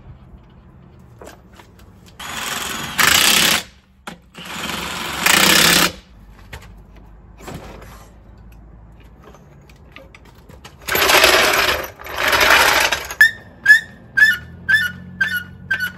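Cordless impact wrench on wheel lug nuts, running in four bursts of a second or two, then a string of about seven short trigger blips near the end.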